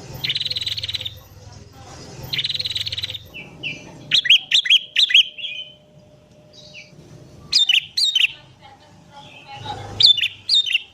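Sooty-headed bulbul song with prenjak (prinia) calls mixed in. It opens with two rapid buzzy chattering trills, then comes in short bursts of loud, clear whistled notes that swoop up and down, at about four seconds, eight seconds and near the end.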